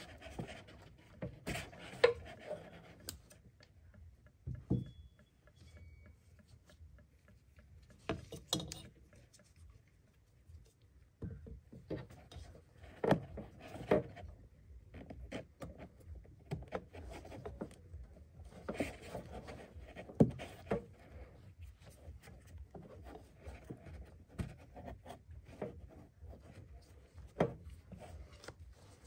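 Hands working among parts deep in a car's engine bay: irregular clicks and knocks, a handful of them sharp, with rubbing and rustling in between.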